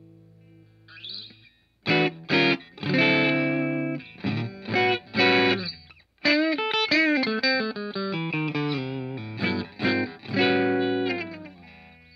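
PRS S2 Vela electric guitar, played on both pickups with the bridge coil split, through a Hotone Britwind amp into a guitar cabinet miked with an ART AR5 ribbon microphone. After a fading chord come two short chord stabs about two seconds in, then ringing chords. Around the middle the notes bend, and the last chords fade out near the end.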